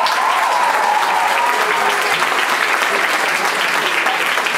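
Audience applauding, with one long, high held cheer over the clapping for about the first two seconds.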